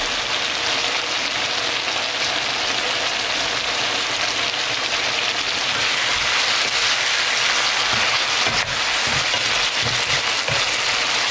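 Soy-sauce braised chicken bubbling and sizzling in a frying pan as its sauce reduces, a steady hiss. In the last few seconds a wooden spatula turns the pieces, adding a few soft knocks against the pan.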